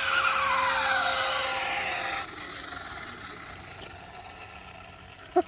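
An RC speed-run car's TP 2350kv brushless motor, run on 6S, whines with several tones falling steadily in pitch as the car slows after a high-speed pass. The whine cuts off about two seconds in, leaving faint background chirping.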